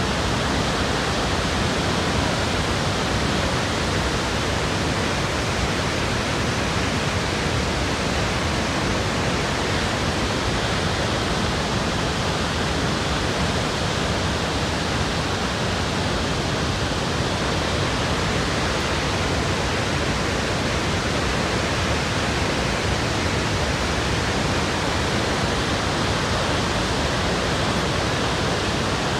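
Victoria Falls, the Zambezi River pouring over the falls: a steady, even rush of falling water.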